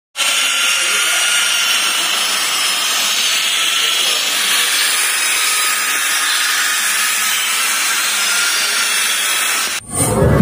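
Electric rotary car polisher with a foam pad running steadily against car paint: an even motor whine over a hiss. It cuts off suddenly near the end and a low boom begins.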